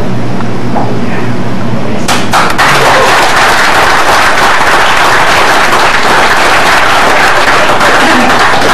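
Audience applauding, breaking out about two seconds in and keeping up to the end.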